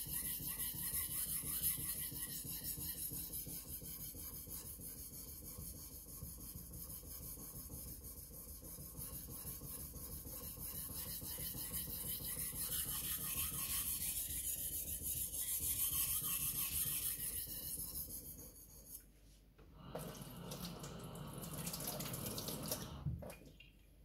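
Takamura Chromax knife blade being stroked back and forth on a wet whetstone, a continuous scraping grind. It stops a little after 18 seconds in, and a shorter burst of sound follows before it goes quiet near the end.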